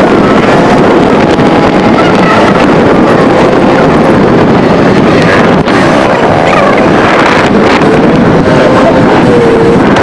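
Heavy wind rushing over the camera microphone on a moving KTM RC 200, with the bike's single-cylinder engine running underneath, its pitch wavering up and down with the throttle.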